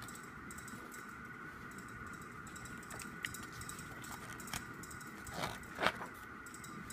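Paper handling as a photo book is leafed through: light taps and rustles, then two louder page swishes about five and a half seconds in, over a steady faint background whine.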